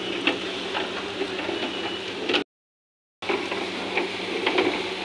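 Automatic puffed-rice (muri) roasting machine running: a dense rustle and crackle of rice grains tumbling in the hot pan and spilling out of the chute, over a faint steady motor hum. The sound breaks off into silence for under a second about two and a half seconds in, then resumes.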